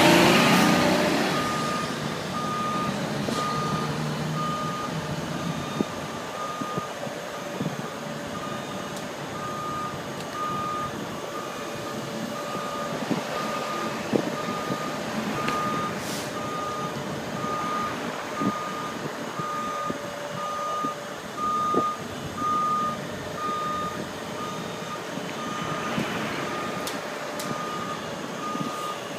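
Heavy forklift backing up: its reversing alarm beeps steadily about twice a second over the running engine, which is louder in the first second or two.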